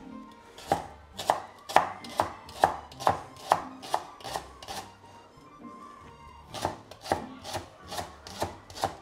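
Kitchen knife chopping a vegetable on a cutting board in even strokes, about two a second. The strokes stop for about two seconds in the middle, then start again.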